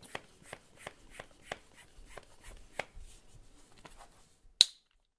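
Mini bicycle hand pump being worked in quick strokes, about three a second, inflating a patched inner tube to check the patch holds. A sharp click about four and a half seconds in is the loudest sound.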